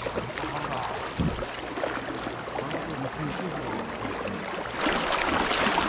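River current rushing and splashing, with choppy, gurgling water that grows louder near the end.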